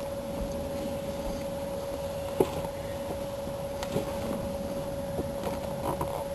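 A few scattered knocks and clicks of a car's rear seat being handled and pushed into place, the sharpest about two and a half seconds in, over a steady high hum.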